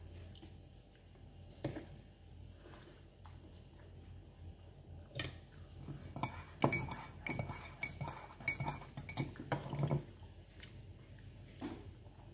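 Close-up eating sounds: a fork clinking and scraping on a dish, with mouth sounds of chewing sticky rice and mango. A few sharp clicks come early, then a dense run of clicks and clinks in the middle, some ringing briefly.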